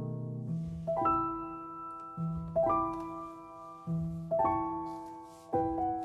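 Slow background piano music: a low note followed by a chord about every one and a half seconds, each ringing and fading before the next.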